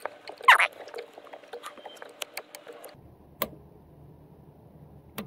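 Ratchet wrench working the mounting bolts of a Cummins fuel control actuator: irregular small metal clicks and knocks, the loudest about half a second in, thinning out to a couple of single clicks in the second half.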